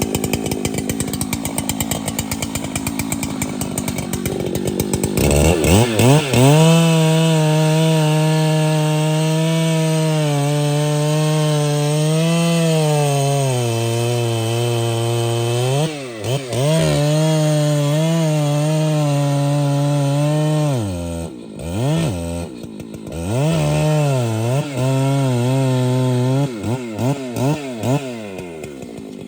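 Large two-stroke chainsaw cutting through a trembesi trunk. After about five seconds its engine settles into a steady high-speed run under load, sagging in pitch a few times as the chain bites. Near the end it comes back in short revs.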